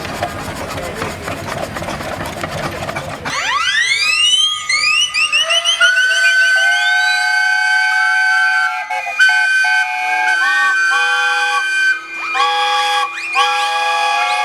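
Mass whistle blow of traction-engine steam whistles. After about three seconds of even background noise, many whistles start together, each sliding up in pitch as the steam comes through, then settling into a held chord of many different notes. Near the end some whistles cut out and come back in short blasts.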